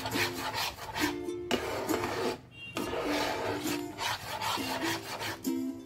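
A spatula scraping and stirring thick, wet cornmeal dough round a pan in repeated strokes, with a short pause about two and a half seconds in. Background music plays underneath.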